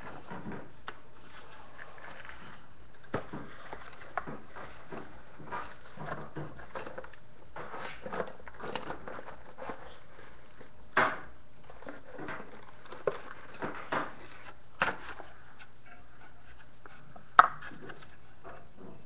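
Irregular clinks and knocks of hard objects, such as tools, being handled, over a faint steady low hum; the sharpest knock comes near the end.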